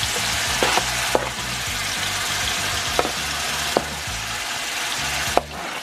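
Ground beef and steak sizzling steadily in an oiled skillet as sliced onion and peppers are scraped in, with several sharp clicks of a metal spoon knocking against the cutting board and pan.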